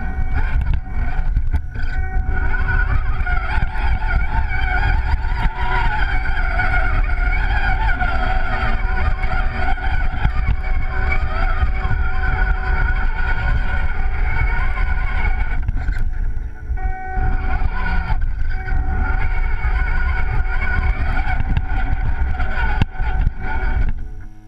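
Radio-controlled rock crawler's electric motor and gear drivetrain whining steadily under varying throttle, over a heavy low rumble of chassis vibration. The whine dips briefly about two-thirds of the way through and cuts off just before the end.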